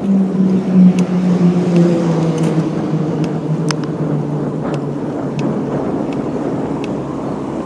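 A road bike rolling over wet city asphalt, heard close up: tyre and road noise under a low hum that slowly drops in pitch and fades. A scattered handful of small sharp clicks sits on top.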